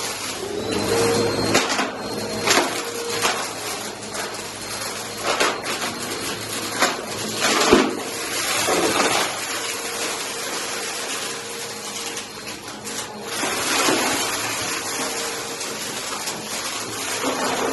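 Vacuum cleaner running steadily over carpet, picking up a sprinkled debris mix, with sharp rattles and clicks as bits of debris are sucked up. The sound is loud and echoes off the hallway walls.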